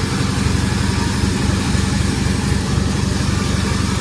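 Sawmill's engine running steadily with a low, even hum and no change in pace.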